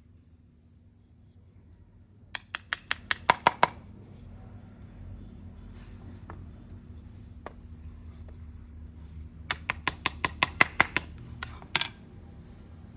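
Two quick runs of sharp taps on wood, about ten taps each, several seconds apart, with a few single taps between, as a wooden joint is worked.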